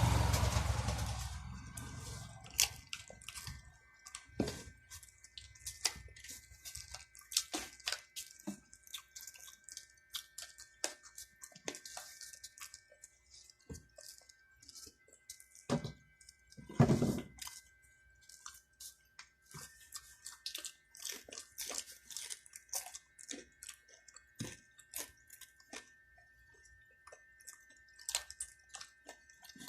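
Close-miked chewing and eating mouth sounds: many short, wet smacking clicks with some crunching, as someone eats chicken curry and fried chicken. A low rumbling noise fades away over the first second or two, and there is a louder burst of noise about seventeen seconds in.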